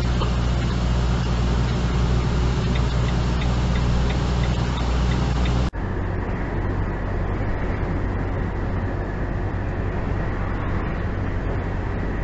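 Steady engine and road drone heard inside a large vehicle's cab while driving, with a light regular ticking in the first half. About halfway through the sound cuts abruptly to a different, slightly quieter drone.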